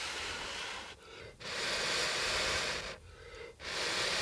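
A man blowing hard and steadily on smouldering campfire embers to keep the fire going: long breathy blows of well over a second each, about three, with short pauses between for breath.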